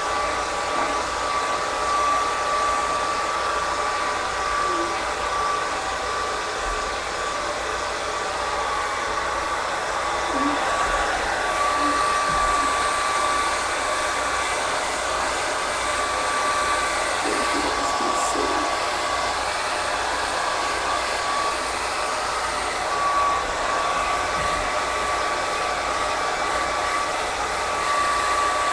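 Handheld hair dryer running steadily on its low setting: a rush of air with a thin steady whine.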